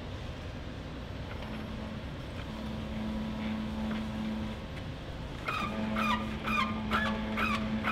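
Red hydraulic floor jack being pumped by its handle to lift a car. From about five and a half seconds in it squeaks in quick repeated chirps, two or three a second, one with each stroke, over a steady low hum.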